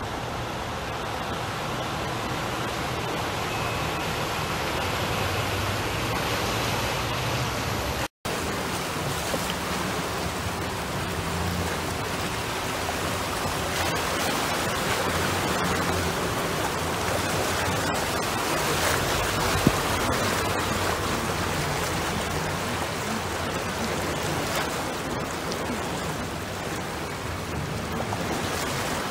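Steady rush of rain and floodwater churned up by vehicles wading through a flooded street, with a low engine hum underneath. The sound cuts out for a moment about eight seconds in.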